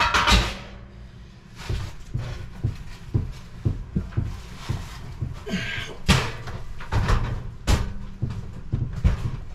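Irregular knocks and clunks of a vintage metal gas stove being shifted and pushed into its cabinet space, with louder bangs just after the start, about six seconds in and near eight seconds.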